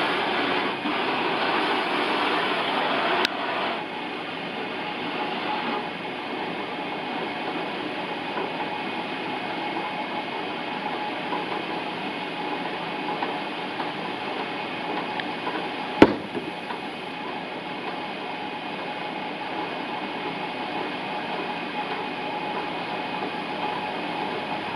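Inclined belt conveyor with a top bend running steadily, its motor, rubber belt and rollers making a continuous mechanical noise. The noise is louder for the first three seconds, then drops after a sharp click. One loud knock comes about two-thirds of the way through.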